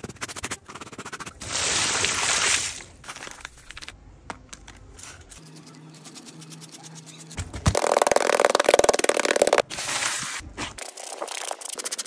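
Wet scrubbing and rubbing of a soaked plush toy by hand with a bar of soap, in separate bursts of quick strokes. There is a loud stretch about a second and a half in and a louder one of about two seconds past the middle, with a quieter lull between them.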